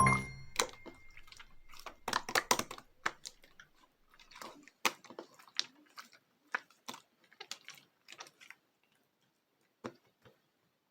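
Scattered small clicks and taps at irregular intervals, quiet, with near silence between them.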